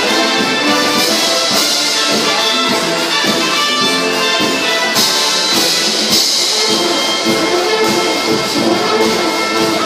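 Brass marching band playing full out, trumpets and trombones over low brass, with percussion strikes landing on the beats.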